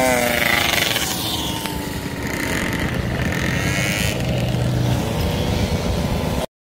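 Mopeds riding past one after another, their small engines buzzing: one drops in pitch as it goes by near the start, and another rises in pitch near the end. The sound cuts off suddenly just before the end.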